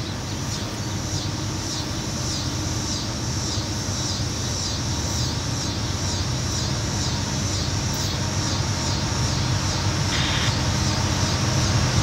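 Low rumble of an approaching train, growing slowly louder. Above it, a high pulsing sound repeats about twice a second, and a brief hiss comes about ten seconds in.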